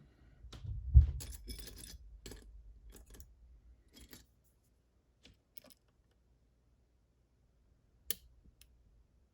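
Small metal parts of a lock and picking tools being handled: a low bump about a second in, then a couple of seconds of light metallic clicks and rattles, and one sharp click near the end.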